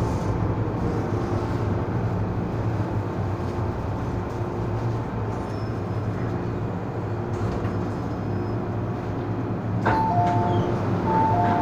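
Hong Kong MTR M-Train carriage interior as the train runs and comes to a stop, with a steady low hum of the motors and running gear. About ten seconds in there is a sudden clunk, then the doors open to a two-note falling chime that sounds twice.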